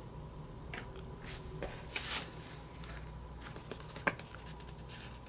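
Soft rustling and light clicks of sticker sheets and paper being handled on a desk, with one sharper tap just after four seconds in.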